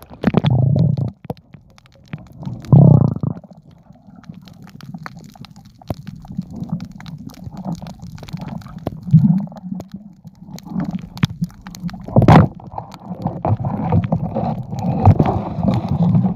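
Muffled underwater sound picked up by a cellphone held underwater: water gurgling and sloshing with scattered small clicks and bumps. A loud low thump comes about three seconds in and a sharp knock about twelve seconds in, and the gurgling grows busier after that.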